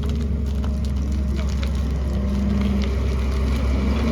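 Excavator's diesel engine running steadily under work, with a deep drone. A stronger hum comes in about halfway through and again near the end.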